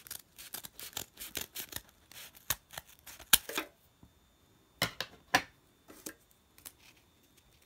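Scissors cutting through the edge of a paper envelope: a quick run of short snips for the first three to four seconds, then a few separate sharper clicks.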